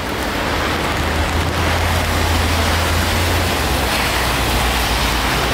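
Steady rain, heard as an even hiss, over a deep low rumble.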